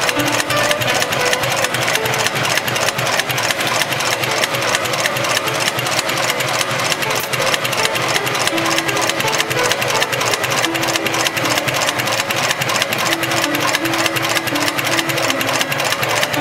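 Extra-heavy-duty computerized bar-tacking sewing machine running steadily at high speed, its needle driving a dense bar tack through the end of a climbing rope to form a sewn eye. It makes a rapid, even stitch beat.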